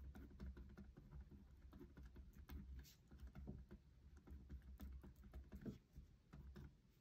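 Pen writing on graph paper over a wooden tabletop: faint, irregular scratches and taps of the pen tip as a label is written.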